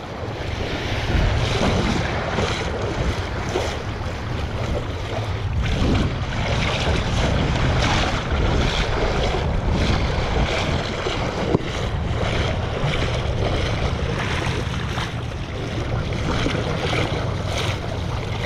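Wind rumbling on the microphone over water lapping and splashing against a small open skiff, which is being hauled by hand along a salmon setnet's float line.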